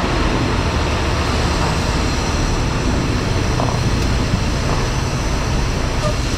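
Semi truck running, a steady, even engine drone while the rig manoeuvres slowly.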